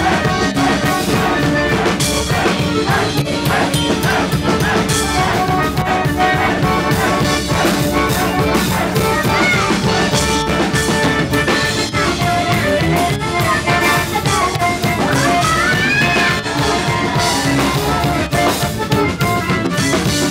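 Klezmer tune played live on a chromatic button accordion over a drum kit keeping a steady, driving beat.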